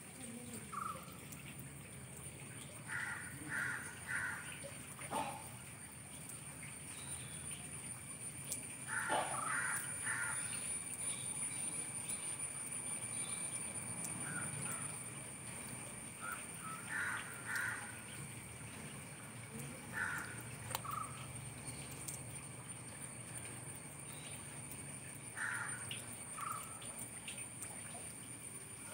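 A bird calling in short calls, two to four at a time, repeated every few seconds.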